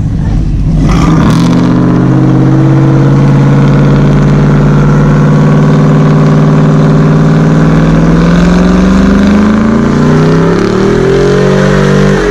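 Pickup truck engine revving up about a second in and held at high revs during a burnout, the rear tyre spinning on the asphalt; near the end the revs dip and then climb again.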